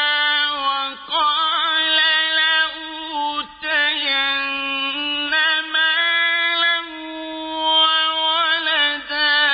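A male Quran reciter chanting in the melodic mujawwad style, holding long high notes with ornamented turns, in several phrases with short breaks between them.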